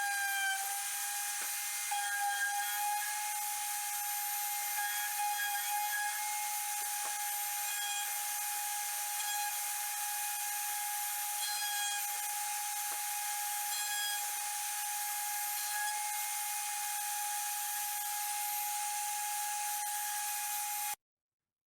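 CNC router spindle running with a steady high whine over a hiss; it cuts off abruptly near the end.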